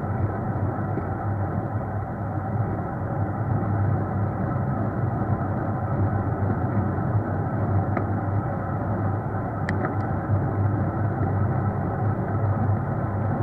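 Steady road and wind rumble picked up by a camera on a moving vehicle, unchanging throughout, with a few faint clicks about 8 and 10 seconds in.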